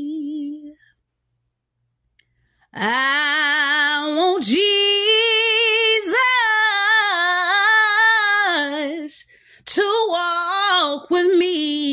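A woman singing a gospel melody unaccompanied, without words: after a pause of about two seconds she holds one long note with wide vibrato for about six seconds, then starts another phrase near the end.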